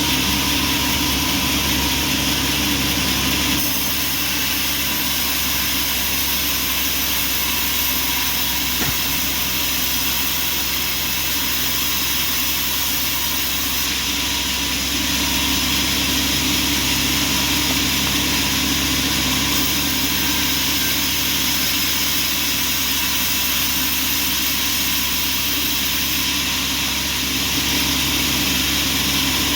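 Sawmill machinery running steadily: a constant mechanical hum and whir with steady tones and no pauses.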